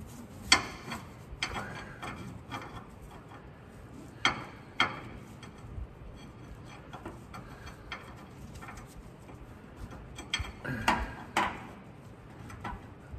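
Scattered sharp metal clicks and clinks of hand tools and bolt hardware being handled while fitting the drive shaft carrier bearing bolts. Loudest about half a second in, twice around four to five seconds in, and in a cluster near the end.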